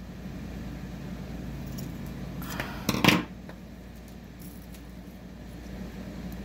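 Scissors snipping through tangled ribbon and string, a short loud burst of a few quick cuts about three seconds in, over a steady low hum.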